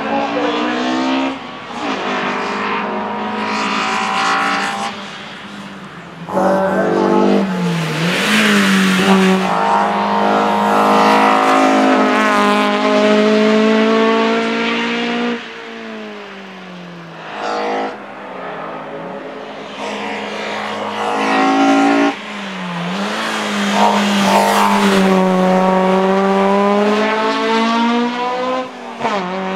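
Racing Mazda MX-5 coupé engine at full throttle, its pitch climbing steadily through each gear and dropping sharply at every upshift. This repeats over several passes, with a few quieter stretches in between.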